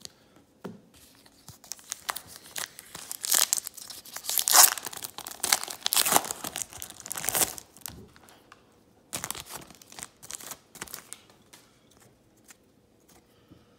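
A foil 2018 Panini Donruss baseball card pack crinkling and tearing open, the crackling loudest around the middle. Sparser short clicks and rustles follow as the cards are taken out of the wrapper.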